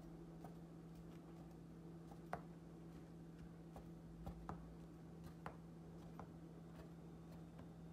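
Fork tines pricking rounds of pizza dough, making faint, irregular taps as they go through onto the marble worktop beneath, over a low steady hum.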